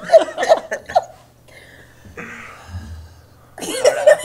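People laughing and chuckling in short bursts, then a quiet pause of a couple of seconds, then voices and laughter starting again near the end.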